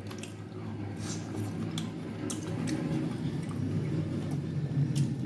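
A person chewing a mouthful of steak close to the microphone, with scattered wet mouth clicks and squishes, over a steady low hum.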